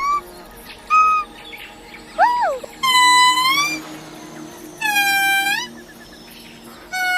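A monkey giving a series of high, whistle-like calls, about five. Some are short rising-and-falling yelps and others are held for most of a second, dipping and then rising at the end.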